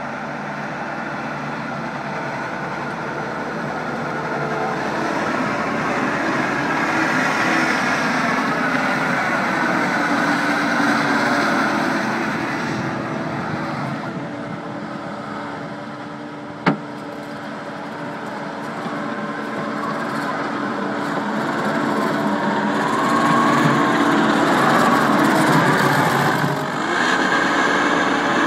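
Takeuchi TL150 tracked skid steer's 97 hp diesel engine running under load while the machine is operated, its pitch and loudness slowly rising and falling. A single sharp click comes a little past halfway.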